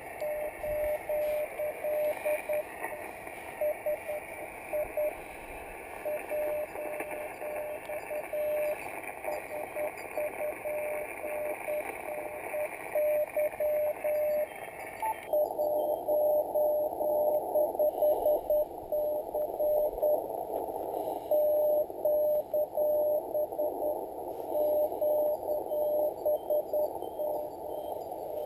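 Morse code (CW) from a Yaesu FT-817ND shortwave transceiver: a single tone of about 600 Hz keyed on and off in dits and dahs, over steady band hiss. About halfway through, the hiss abruptly narrows as its upper range cuts out, while the keyed tone carries on.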